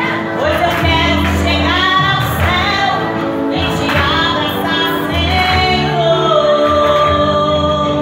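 A woman singing a song into a microphone, amplified, over sustained low accompanying notes. She holds one long note through the last couple of seconds.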